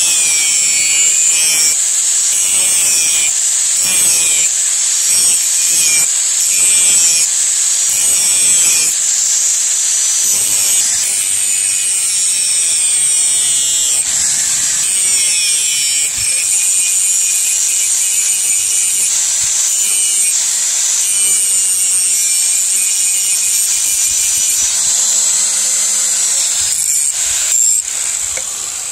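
Electric angle grinder with a flap disc grinding a steel knife blade: a steady high whine with a rasping grind that wavers as the disc is worked along the steel.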